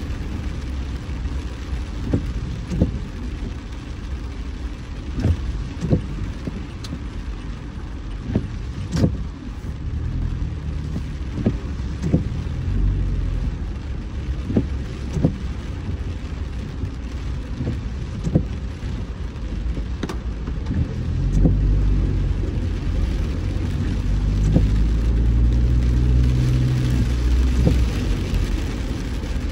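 A car driving in the rain: steady low road and engine rumble, with scattered sharp ticks of rain striking the car. The rumble grows louder about two-thirds of the way through.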